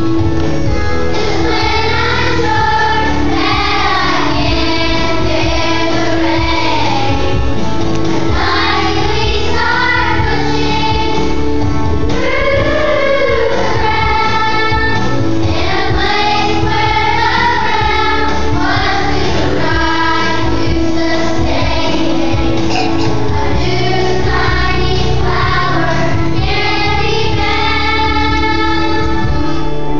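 Children singing a song together over an instrumental accompaniment with a steady bass line.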